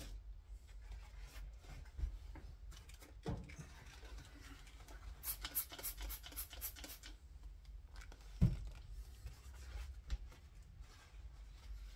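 Rubbing and scratching of hands cleaning lapping compound off scope rings, with light clicks, a quick run of scrubbing strokes in the middle and a single thump a little after eight seconds, the loudest sound.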